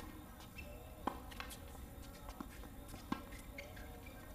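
Tennis balls struck by racket strings during a doubles point: a serve about a second in, then sharp pops of returns about a second apart, some fainter from the far side of the court.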